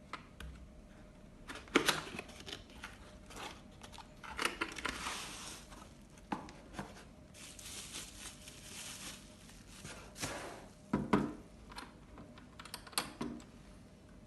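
Handling noises from a retro alarm clock and its packaging: rustling and crinkling, with several sharp knocks and clicks. The loudest knocks come about two seconds in and again about eleven seconds in.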